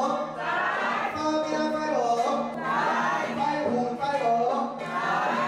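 Taoist priest chanting scripture in a sung, melodic style, with the pitch rising and falling in phrases about a second long over a steady low held tone.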